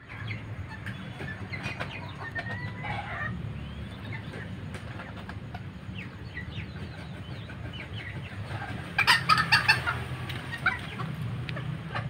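Serama bantam chickens clucking in short, scattered calls, with a louder burst about nine seconds in, over a steady low background hum.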